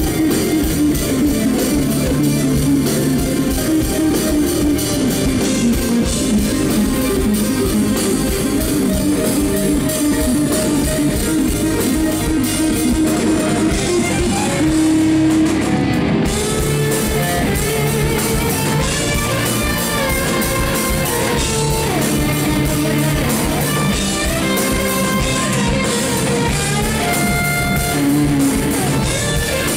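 Instrumental rock played live: lead electric guitar melody over electric bass and drum kit.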